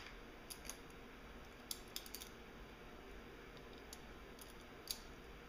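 Faint, scattered metal clicks and ticks of a small hex key working on the shift cam inside a MerCruiser Bravo sterndrive upper unit, about eight light clicks at uneven intervals.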